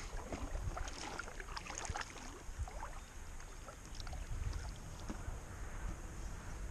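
Quiet river ambience: water and light wind noise with a low rumble, and scattered faint small clicks and light knocks.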